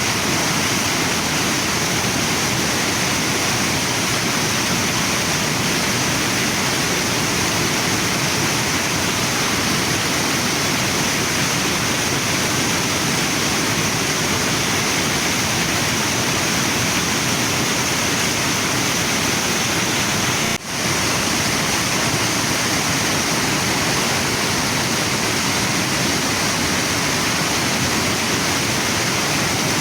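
Waterfall and river water rushing steadily, with a momentary dropout about two-thirds of the way through.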